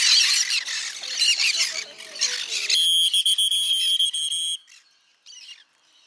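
A flock of green-cheeked conures squawking and chattering loudly together. About three seconds in, the chatter cuts off abruptly and a steady high tone sounds for about two seconds, followed by a quieter stretch with a few faint bird calls.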